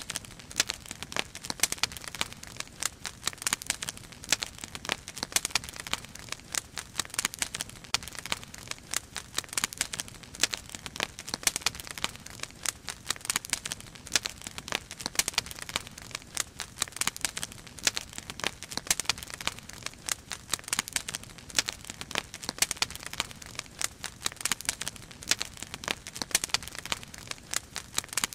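Wood fire crackling, with dense irregular sharp snaps and pops throughout.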